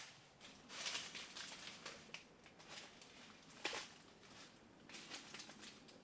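Footsteps crunching through dry leaf litter and undergrowth, with irregular crackles and rustles of leaves and twigs.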